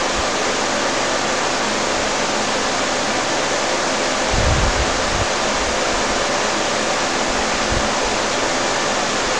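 A steady, fairly loud hiss with no pitch to it, and a brief low rumble about four and a half seconds in.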